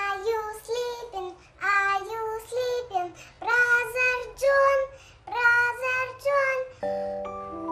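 Young girl singing a series of short phrases. Near the end a bright chiming tune starts up.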